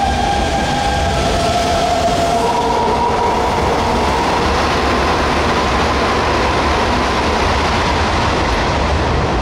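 Hanshin 5500 series commuter electric train accelerating away from the platform. Its VVVF inverter whines in steady tones that step up in pitch about two and a half seconds in, over the steady rumble of wheels on the rails.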